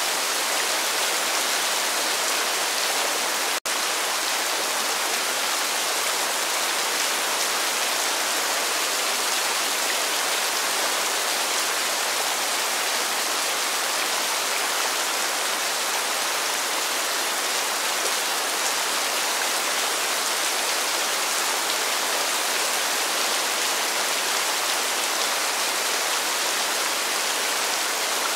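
Steady rain: an even, dense hiss with no single drops or thunder standing out. A split-second break in the sound about three and a half seconds in.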